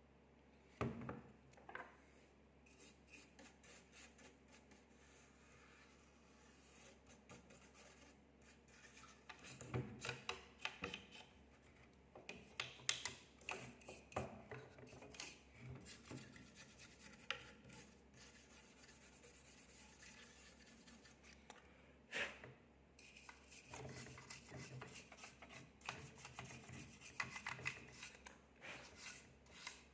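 Faint, irregular rubbing and scraping of hands working on graphics-card parts, with scattered small clicks and a few sharper knocks.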